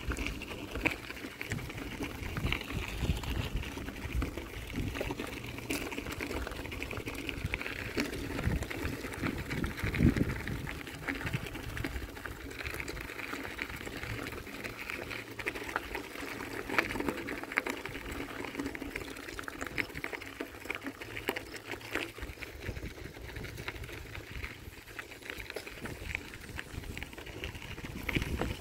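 Bicycle tyres rolling over a dirt and gravel trail: a steady crackling crunch with the bike's small rattles and low rumble.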